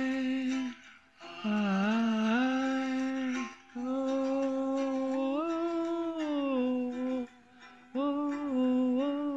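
A man humming wordless held notes in a slow melody, in four phrases with short pauses between them.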